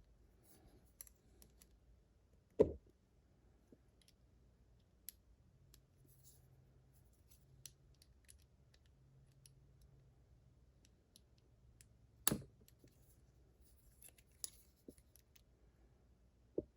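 Faint clicks and taps of a Kryptonite padlock's small metal parts being handled during reassembly, with two sharper knocks about two and a half seconds in and about twelve seconds in.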